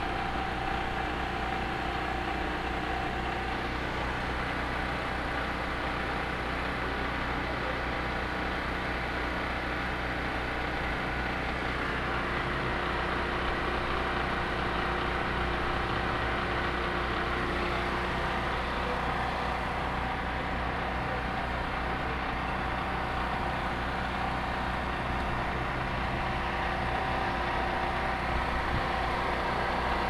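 A steady machine drone, a constant hum with several steady tones over an even rushing noise, unchanged throughout.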